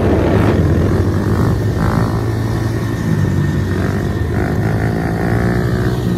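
Mini motorcycle engines running as a rider holds a wheelie, with a higher engine note joining about four seconds in.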